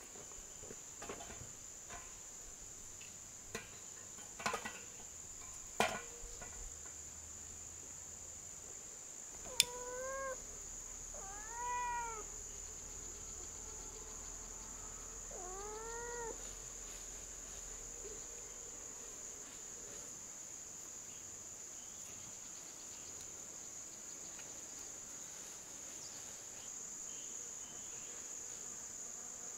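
Steady, high-pitched chorus of insects. A few knocks come in the first few seconds, a sharp click about ten seconds in, and then three short rising-and-falling animal calls.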